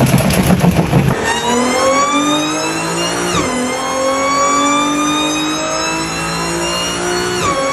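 Supercharged engine accelerating hard, its supercharger whine climbing steadily in pitch with the revs. The pitch drops suddenly twice, at about a third of the way in and near the end, then climbs again, as at upshifts.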